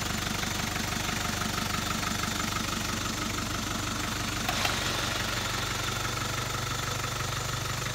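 Mitsubishi Jeep engine idling steadily with an even, rapid pulsing, and one short sharp click a little past halfway.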